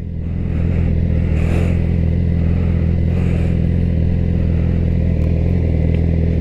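Yamaha R6 sport bike's inline-four engine running steadily at low revs while the bike rolls slowly. Its level builds a little in the first half second and then holds even, with no revving.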